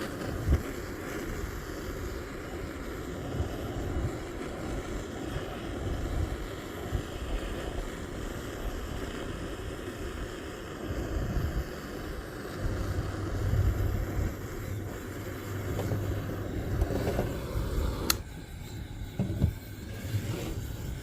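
Wind buffeting the microphone, a gusting low rumble. A sharp click comes near the end, after which the rumble falls away.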